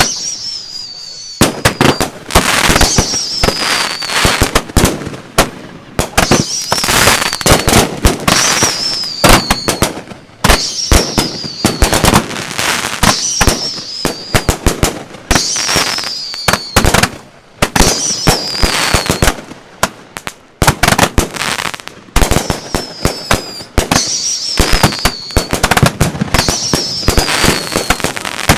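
Consumer fireworks cakes firing in rapid volleys: dense sharp pops and crackle, with a falling whistle about every second and a half.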